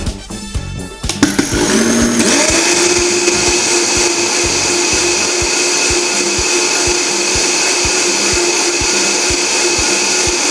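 Vitamix TNC 5200 blender switched on about a second in, its motor whining up in pitch and then running steadily and loud, blending finely ground basmati rice with water into rice milk.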